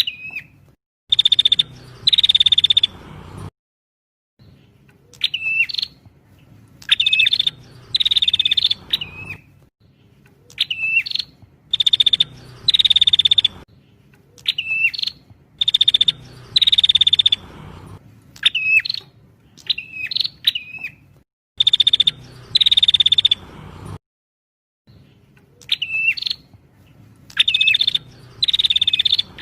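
Prinia (prenjak) song played as a bird-lure recording. Sharp chirps that bend up and down are followed by a pair of fast, buzzing trills, and the same phrase repeats about every five seconds.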